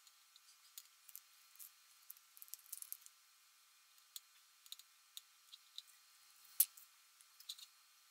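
Scattered light clicks, taps and rustles of hands handling an iPhone 11 and a tempered-glass screen protector on a tray, with one sharper click about two-thirds of the way through.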